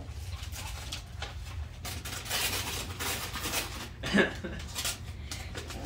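Rustling of gift wrap being handled in bursts between about two and four seconds in, with a short faint voice just after four seconds, over a steady low hum.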